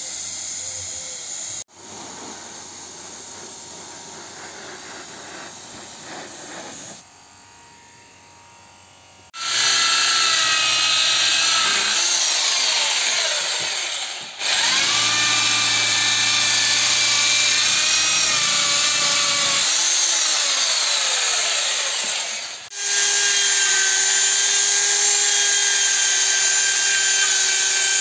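Corded electric drill running under load against a steel brake backing plate, its motor pitch sliding up and down as the pressure changes, with a couple of brief breaks. In the opening second or two, a paint spray gun hissing.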